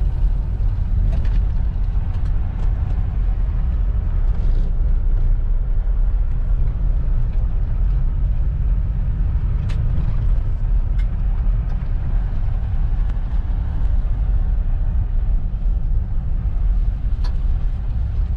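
A vehicle driving, heard from inside the cabin: a steady low road rumble with a few scattered sharp ticks.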